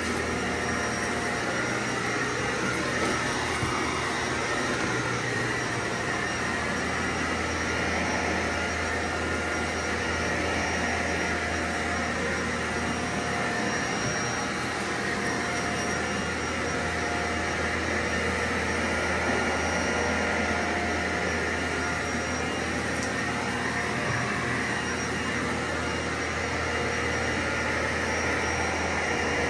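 Vacuum cleaner running steadily, worked over carpet in slow passes: a constant motor drone with a low hum and a few held whining tones.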